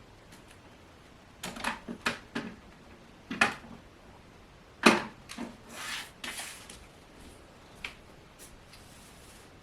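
Objects being handled and set down on hard surfaces: a scattering of short knocks and clicks, the loudest about five seconds in, with brief rustling around six seconds in.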